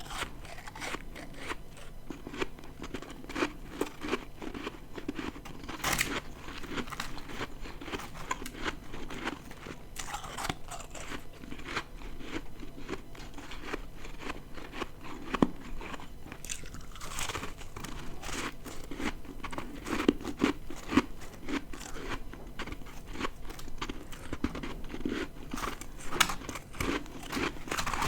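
Close-miked crunching and chewing of ice: repeated bites and crackly chewing that keep going, with scattered louder crunches.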